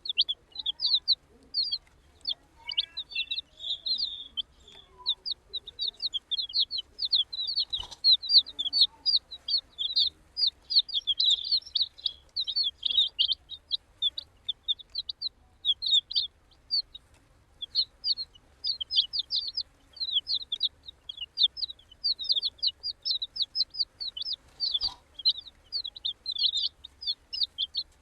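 A group of baby chicks peeping constantly: many short, high, falling peeps overlapping in a steady stream, with a faint knock or two.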